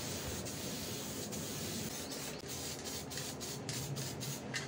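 Aerosol spray can of candy-green paint hissing as it lays a thin coat on a motorcycle wheel, with several brief breaks in the spray in the second half.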